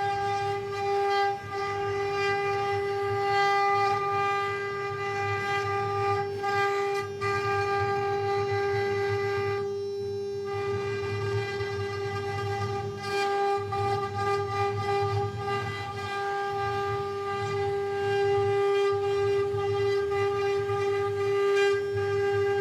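CNC wood-carving router spindle running at high speed, a steady high whine with overtones over a rough low rumble as it carves, briefly easing off about ten seconds in.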